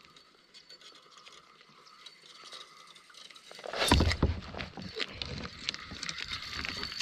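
Faint creek-side ambience, then about four seconds in a sudden run of loud knocks, rustling and water noise as a hooked trout is fought on a rod from a kayak.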